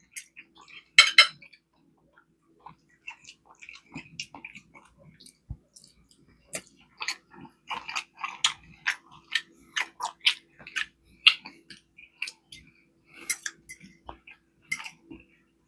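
Close-miked eating: chewing with irregular clicks and clinks of cutlery against a dish, in short uneven bursts.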